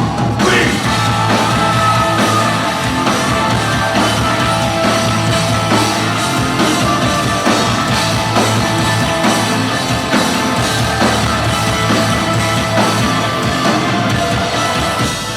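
Industrial metal band playing live and loud: distorted electric guitars, bass and drums in a dense, steady instrumental passage.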